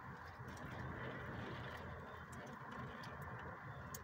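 Strong wind and rain heard through a closed window: a steady low rush, with scattered light ticks of rain on the glass.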